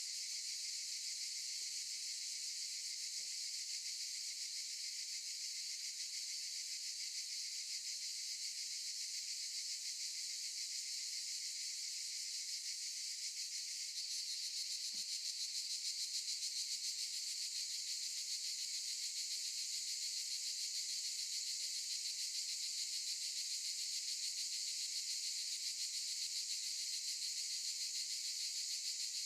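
Chorus of cicadas buzzing steadily in a high, shimmering drone, growing slightly louder about halfway through.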